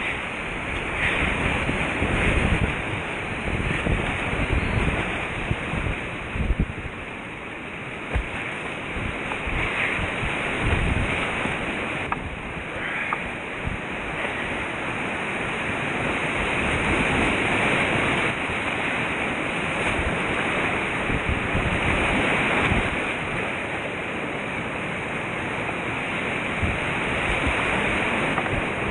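Whitewater rapids rushing and splashing around a kayak running them, a steady loud wash of moving water, with an uneven low rumble of wind and water buffeting the camera microphone.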